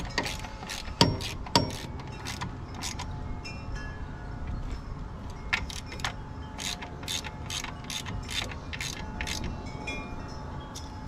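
Socket ratchet clicking in short, irregular runs as the bolts on the Kubota KX91-3's hydraulic filter housing cover are run down snug. Light metallic clinks and ringing of the steel tools come between the runs.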